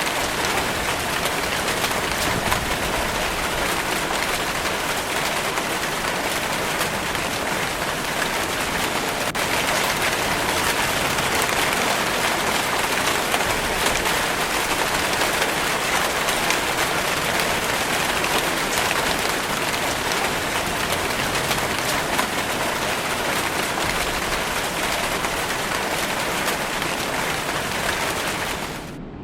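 Steady heavy rainfall, a dense even hiss of drops hitting a surface, which cuts off abruptly right at the end.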